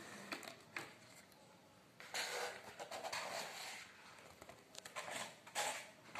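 Cardstock and paper rustling and scraping as the lid is lifted off a handmade explosion gift box and its folded card panels open out, with a few light taps; the longest stretch of rustling starts about two seconds in.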